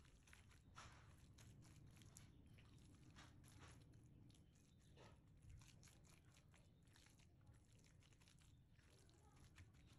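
A spatula stirring and working a wet lahmacun topping of raw minced meat, chopped parsley, peppers and onion in a glass baking dish. Faint, with many short, irregular strokes.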